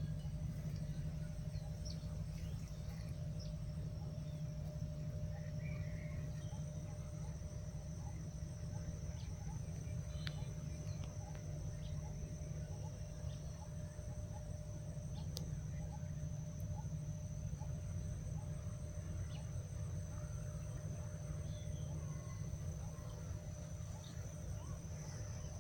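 Birds chirping, with scattered short calls over a steady high-pitched drone and a constant low rumble.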